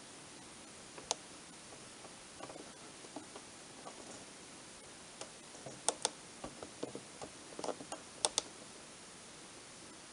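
Scattered clicks of small push buttons being pressed on a Tapuino tape emulator, stepping through its menu. Two sharp quick pairs of clicks come in the second half, over a faint steady hiss.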